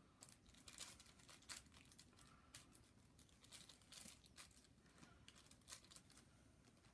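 Faint crinkling and rustling of packaging being handled, in scattered short crackles and clicks.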